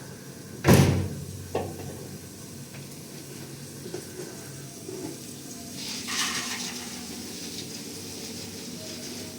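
A loud knock about a second in, a smaller knock soon after, then a short hissing noise about six seconds in, over a faint steady background.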